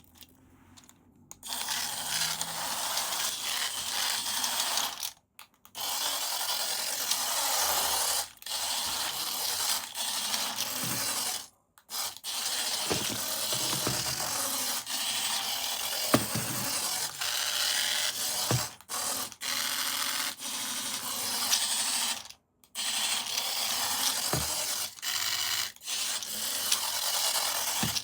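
Battery-powered toy's small geared motor running with a steady whirring, clicking gear noise, stopping briefly several times as it is switched off or changes movement.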